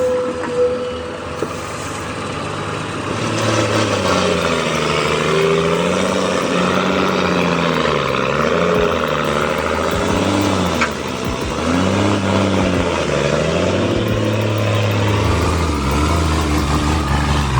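Motor vehicle engine running under load, its pitch rising and falling repeatedly as it revs up and eases off.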